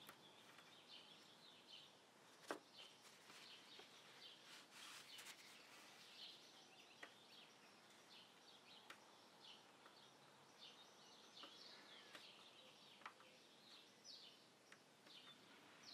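Near silence, with faint bird chirps in the background and a few soft ticks.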